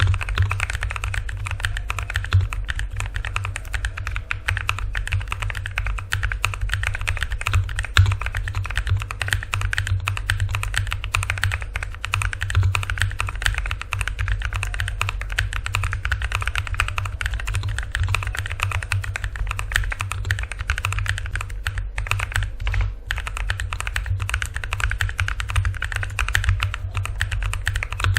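Continuous, fast typing on a Cooler Master MK870 mechanical keyboard with WS Brown tactile switches: a dense, steady stream of key clicks.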